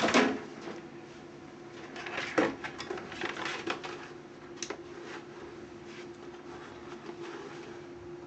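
Handling noises on a padded workbench: a few light knocks and clicks as things are set down and moved, with soft rustling between, over a steady faint hum.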